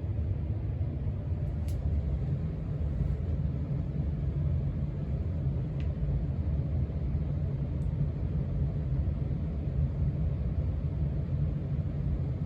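1989 Casablanca Four Seasons five-blade ceiling fan running steadily on freshly replaced bearings: an even low rumble of the motor and moving air, with a few faint clicks.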